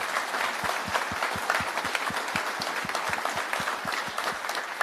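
Audience applauding, with a steady clapping beat of about five claps a second underneath the patter of many hands.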